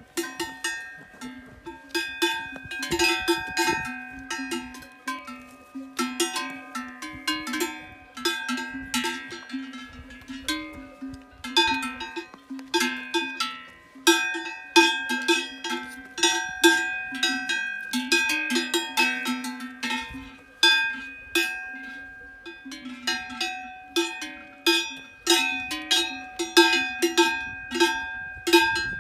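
Cowbells on grazing cows clanking irregularly and continuously, several bells ringing at different pitches.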